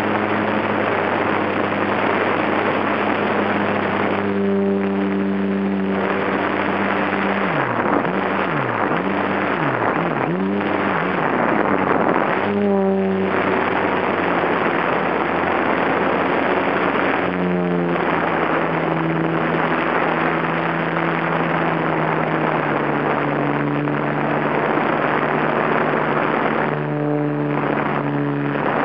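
Wind rushing over the onboard camera of a HobbyZone Super Cub RC plane in flight, with the plane's brushed electric motor and propeller humming underneath. The motor's pitch swoops up and down a few times about eight to eleven seconds in, and shifts again around thirteen and seventeen seconds.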